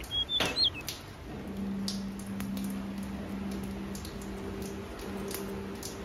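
Finches feeding in a wooden seed tray: scattered light pecking ticks, with a knock and a few short high chirps about half a second in. A steady low hum sets in after about a second.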